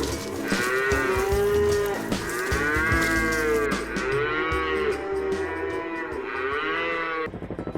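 Cattle mooing, several animals giving long, overlapping calls that rise and fall in pitch, one after another. Near the end the calls stop abruptly and a fast, even beating sound starts.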